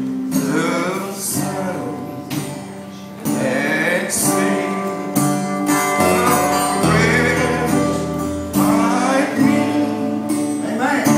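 A man singing into a microphone over guitar accompaniment, performed live.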